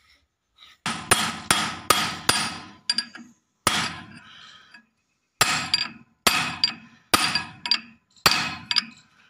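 Hammer blows on a hook spanner seated on the threaded gland of a hydraulic cylinder, about fifteen sharp metal-on-metal strikes that ring, coming two or three a second in uneven bursts with a short pause midway, as the gland is worked round during a seal replacement.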